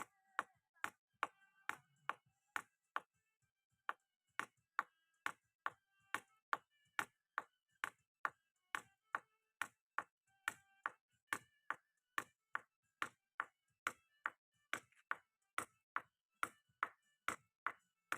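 Steady, even ticking: sharp clicks about two and a half a second, each with a short ring.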